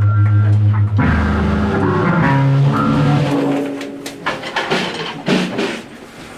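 Electric guitar and bass ringing through amplifiers. A low steady drone runs for the first second, then several notes sound together and die away over about three seconds, followed by scattered clicks and knocks.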